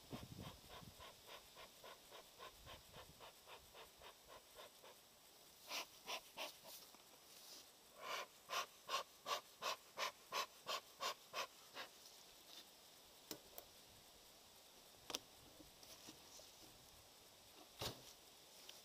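Bee smoker's bellows pumped in a steady series of soft puffs, about three a second, faint at first, then a louder run of about a dozen puffs around the middle. A few single knocks follow near the end.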